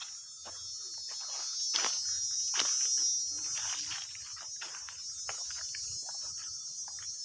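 A steady, high-pitched buzzing chorus of insects such as crickets, with irregular short rustles and clicks over it.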